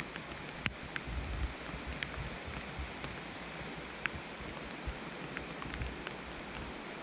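Steady rain hiss with scattered, irregular sharp ticks of raindrops striking the camera.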